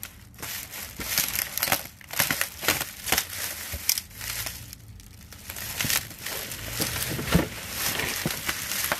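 Bubble wrap crinkling and rustling in irregular crackles as it is cut and pulled off a boxed dish set and handled, with a single thump about seven seconds in.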